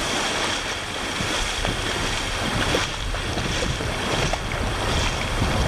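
Small waves washing and foaming over a shallow sandbar, with wind rumbling on the microphone.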